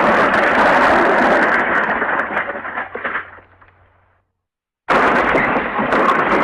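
Loud, dense crashing smash sound effect that dies away about three to four seconds in, then starts again abruptly after a short silence, as the effect repeats.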